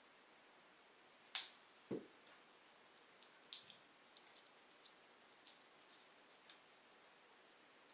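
Soft clicks and light taps from a smartwatch being picked up and its band fastened on the wrist. The two loudest come about one and a half and two seconds in, followed by fainter ticks, all over near-silent room tone.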